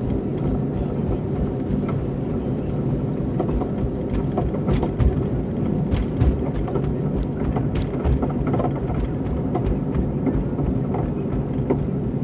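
A 2001 Cadillac Seville driving straight: a steady low rumble and drone with scattered sharp knocks and clunks, the loudest about five and six seconds in. The owner takes the grinding drone for worn wheel bearings; the cause of the clunking is unknown to him.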